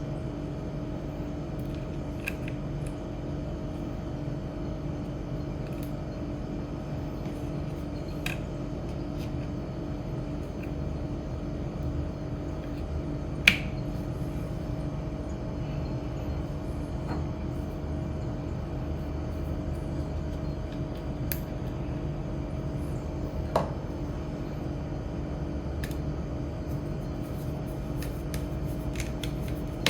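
A steady electrical hum runs throughout, with scattered small clicks and taps; the sharpest come about 13 seconds and 23 seconds in.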